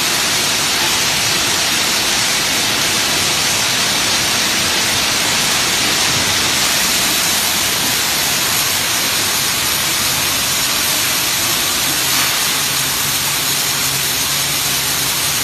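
Adhesive tape slitting and rewinding machine running, a loud, steady rushing hiss as the tape web is wound onto a row of narrow rolls. A faint low hum joins about twelve seconds in.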